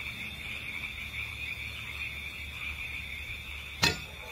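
Steady chirring chorus of crickets, the night-time insect drone, over a low hum, with a single sharp knock near the end.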